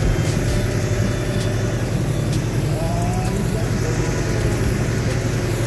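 Engine of a motorized orchard sprayer running steadily, a constant drone, with the hiss of the spray mist being blown out over it.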